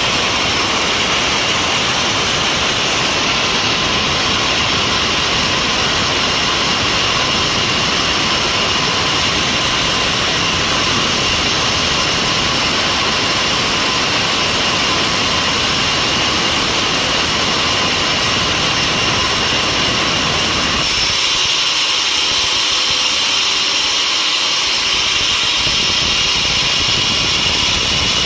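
Sawmill machinery running steadily while sawing mahogany: a loud, even mechanical noise with a steady high whine. The low rumble drops away for about four seconds near the end, then comes back.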